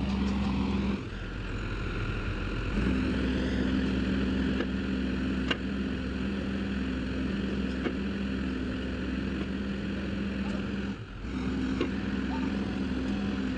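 Excavator's diesel engine running with a steady drone, easing off briefly about a second in and again around eleven seconds before picking back up.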